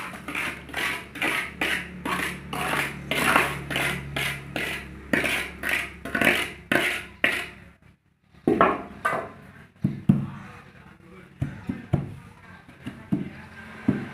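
Wet cement slurry being poured and worked into plastic roof-tile molds: a rhythmic run of scraping, slapping strokes, about two a second, over a low steady hum. Near the end the strokes give way to scattered light knocks.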